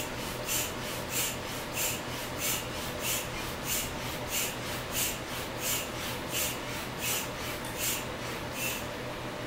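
Small bellows air pump squeezed by hand, pushing air through a hose into an inflatable ball. It makes a steady run of short airy puffs, about three every two seconds, which stop near the end.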